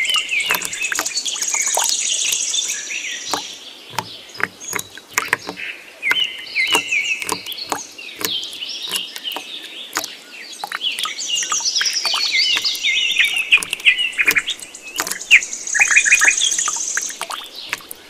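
Birds chirping and twittering, with high rapid trills near the start and again near the end, over many short ticks.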